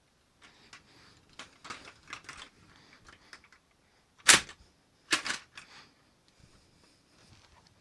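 Lego pump-action shotgun being handled and worked: a series of light plastic clicks and clacks, then one sharp, loud snap about four seconds in, followed about a second later by another burst of clacks.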